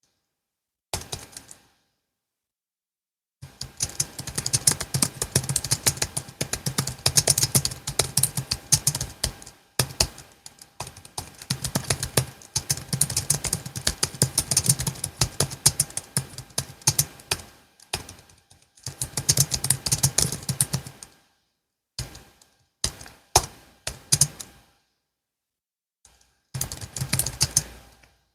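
Typing on a Logitech MX Keys S low-profile keyboard: quick runs of key clicks broken by short pauses, with a few separate keystrokes near the end.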